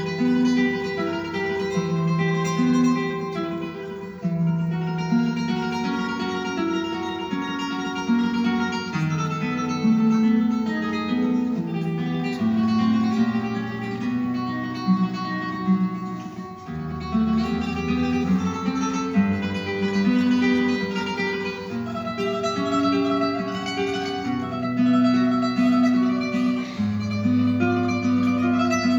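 Solo classical guitar playing a tremolo passage: rapid repeated treble notes sustain the melody over a moving bass line.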